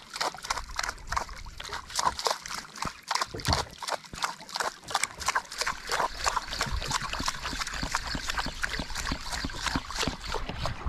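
Sea water slapping and sloshing against the hull of a drifting boat, in quick irregular splashes.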